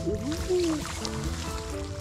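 Background music: held chord tones that change every half second or so, with a sliding melody line about a quarter to a second in.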